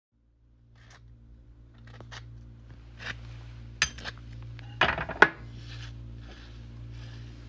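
Clinks and knocks of a knife and small metal oil bottles being handled and set down on a tabletop, with a quick cluster of louder clatters about five seconds in, over a low steady hum.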